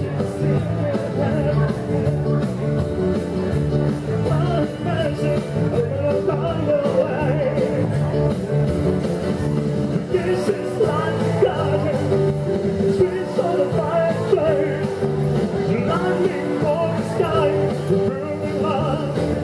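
A man singing into a microphone over a rock-and-roll backing track, amplified through PA speakers.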